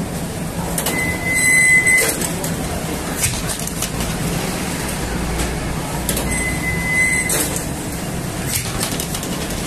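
Automatic flatbread machine (dough-sheet transfer arm and conveyor oven) running with a steady hum and intermittent clanks. A short high squeal comes twice, about five seconds apart, with each cycle of the machine.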